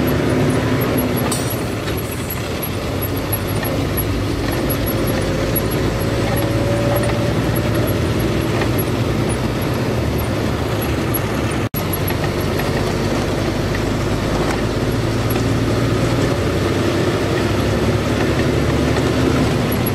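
A truck's engine running steadily while driving on the highway, with tyre and road noise. The sound drops out for an instant near the middle.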